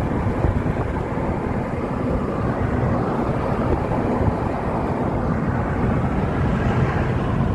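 Steady road and wind noise of a car driving at speed, heard from inside the cabin.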